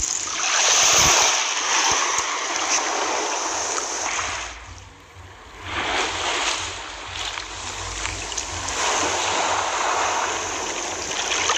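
Rushing water like surf, a steady hiss that swells and ebbs, dipping briefly about five seconds in.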